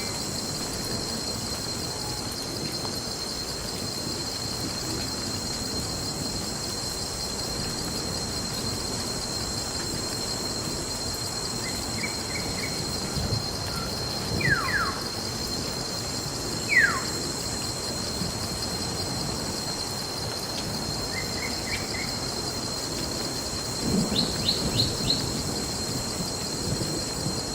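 Night forest ambience: a steady, high insect chorus like crickets chirring over an even background hiss, broken by a few short bird calls: quick chirps, two falling whistles, and a run of four quick high notes near the end.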